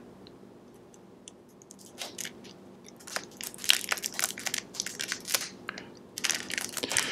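Clear plastic wrapping around an XLR cable connector crinkling and crackling as it is cut and pulled open with small scissors: a quick, irregular run of crackles starting about two seconds in.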